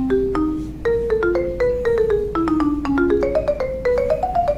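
Music: a quick melody of short, struck, marimba-like notes, about five a second after a brief pause near the start. It dips lower through the middle and climbs again near the end.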